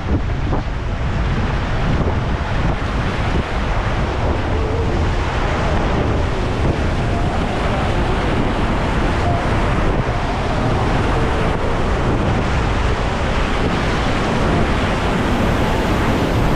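Rushing, crashing whitewater of a river rapid churning around a paddled raft, a loud steady roar, with wind buffeting the microphone.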